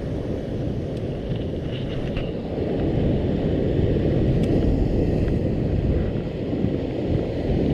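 Wind buffeting an action camera's microphone, a steady low rumble with no clear events in it.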